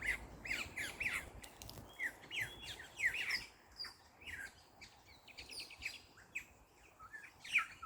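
A flock of birds chirping together: a busy, overlapping stream of short downward-sliding chirps. A low wind rumble on the microphone fades out a few seconds in.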